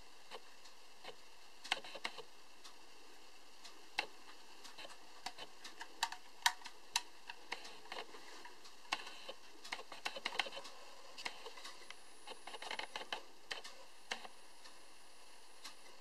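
Irregular light clicks and taps from a vintage tin-plate toy hovercraft being turned over in gloved hands, its thin metal body ticking and knocking lightly, with a denser flurry of clicks about two-thirds of the way in.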